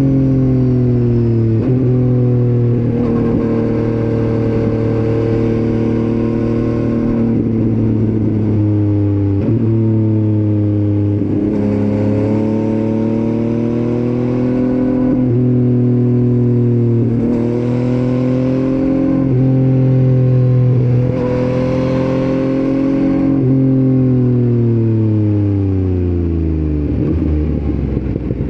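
Motorcycle engine recorded while riding, pulling with the pitch rising and several short dips like gear changes, then slowing down with a falling pitch for a few seconds near the end.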